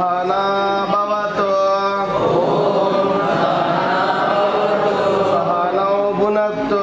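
A group of people chanting a prayer together in unison, in long held notes that shift pitch every second or so.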